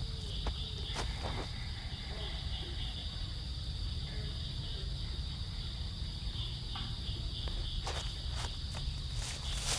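Steady high-pitched insect chorus, with a low rumble beneath and a few sharp crackles of dry brush, several close together near the end.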